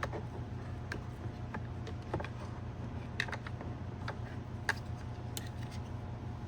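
Irregular light clicks and taps of plastic as a Hyundai Kona side mirror's parts are handled and pried apart with a plastic tool, over a steady low hum.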